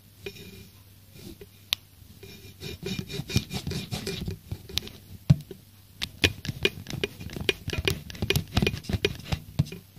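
Irregular tapping, scratching and rubbing clicks, a few at first and then a quick, uneven clatter from about two and a half seconds in.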